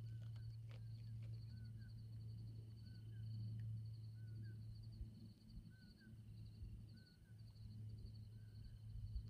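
Faint desert night chorus: insects chirping in rapid, evenly spaced pulses with a thin steady high whine, and a bird repeating a short dip-and-rise call about once a second, over a low steady hum.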